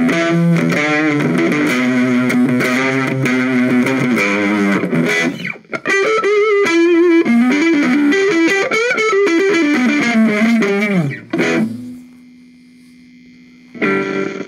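Electric guitar played through a 1990 Peavey T.G. Raxx tube preamp with two 12AX7s, plugged into its high-gain input. Chords ring for about five seconds, then a single-note line climbs and falls. It dies to a faint low steady tone, and a new chord is struck near the end.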